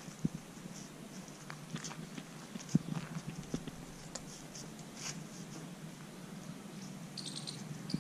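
Quiet outdoor ambience with scattered short, high chirps and a few soft knocks, the loudest about three seconds in.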